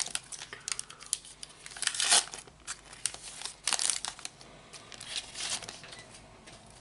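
Torn-open Match Attax trading-card pack wrapper crinkling as it is handled and the cards are slid out, in several short bursts about two, three and a half, and five and a half seconds in.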